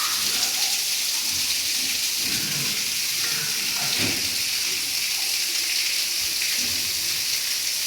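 A steady, even hiss, strongest in the upper range, holding at one level throughout, with a few faint low sounds beneath it.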